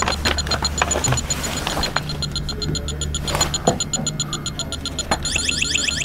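TIF Instruments electronic refrigerant leak detector ticking steadily, about six ticks a second. About five seconds in it switches to a fast, rising warble alarm as it picks up refrigerant at the evaporator drain tube, the sign of a leaking evaporator core.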